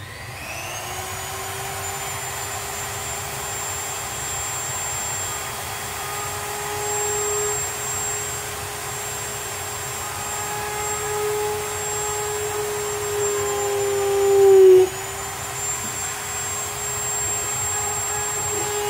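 A small high-speed electric motor spins up with a rising whine and then runs steadily. About fifteen seconds in it gets louder, then dips in pitch as it takes load, before running on.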